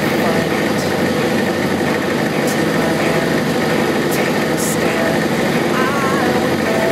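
Single-engine Robin DR221 light aircraft's piston engine and propeller running steadily, an even drone.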